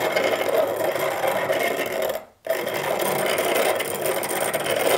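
Hand-cranked manual piston ring filer turning, its abrasive wheel steadily grinding the end of a file-fit piston ring to open up the ring end gap. The grinding breaks off for a moment a little past two seconds in, then resumes.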